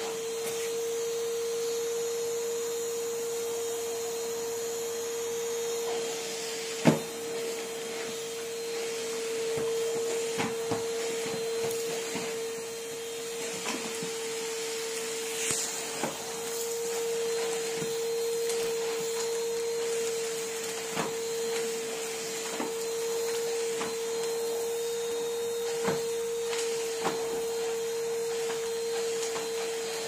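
Numatic Henry vacuum cleaner running steadily with a constant motor whine over a rushing of air, its hose and floor tool worked over carpet. Scattered clicks and knocks come through, with one sharp knock about seven seconds in.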